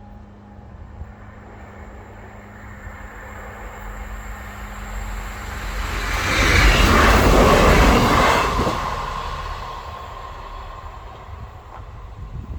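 Class 158 diesel multiple unit passing at speed: it builds up over several seconds, is loudest about six to nine seconds in, then fades away.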